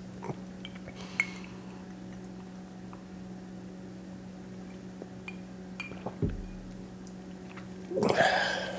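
Faint clinks and light knocks of glassware and dishes on a table over a steady low hum, then a sharp breathy exhale near the end.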